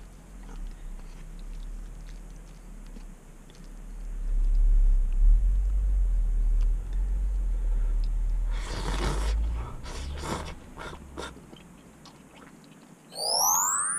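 Person slurping and chewing cup tempura soba noodles, with a noisy slurp at about the middle and a few sharp clicks after it, over a low rumble. Rising synthesizer sweeps start near the end.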